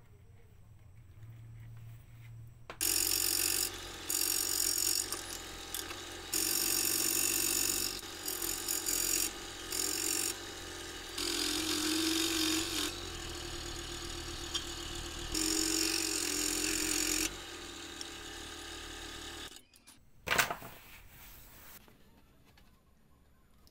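Electric scroll saw running and cutting through wood, its noise rising and falling as the piece is fed and turned against the blade; it starts about three seconds in and stops near the end, followed by a single sharp knock.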